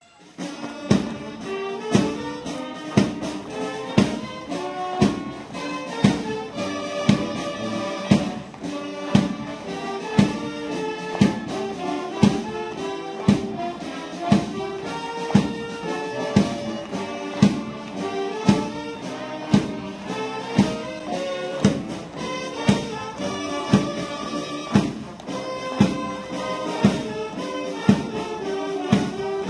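Instrumental background music with a strong, steady beat about once a second.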